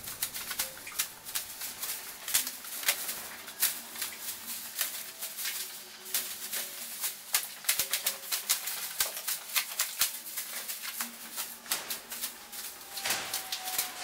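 Plastic carrier bags crinkling and rustling as they are moved and handled: a dense run of irregular sharp crackles.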